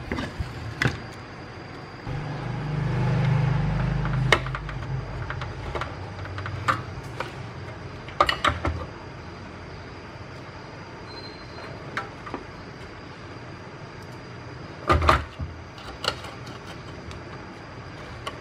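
Scattered clicks and knocks of an induction cooktop's parts being handled and fitted back together during reassembly, with a low rumble for a few seconds near the start.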